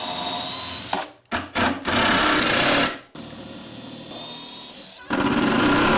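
Cordless drill-driver running into a laminated chipboard cabinet panel. It runs in four stretches of a second or two each, cut off abruptly between them, and the third stretch is quieter than the rest.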